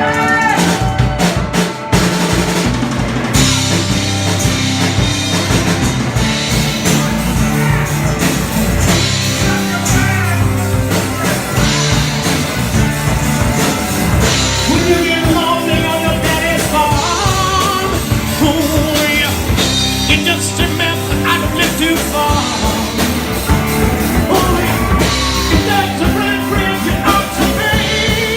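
Rock band playing live, with a drum kit driving the beat and a lead singer coming in a few seconds into the song.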